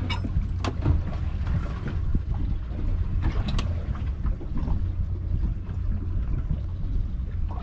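Steady low rumble of an offshore fishing boat at sea, with wind noise on the microphone and a few faint knocks.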